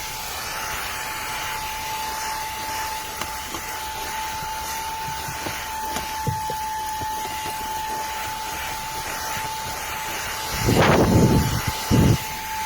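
Xiaomi Mi Vacuum Cleaner Mini handheld cordless vacuum running steadily on its low power setting, a constant airy hiss with a high motor whine. Near the end come two louder rough low noises, the first about a second long, the second brief.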